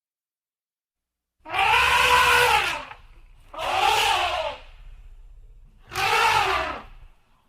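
Elephant trumpeting: three calls about a second apart, each about a second long, rising and then falling in pitch.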